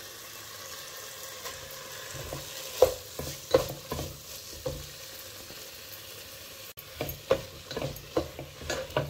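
Spice paste sizzling in a nonstick pan, then chopped spinach being stirred in with a spatula. From about three seconds in the spatula knocks and scrapes against the pan several times.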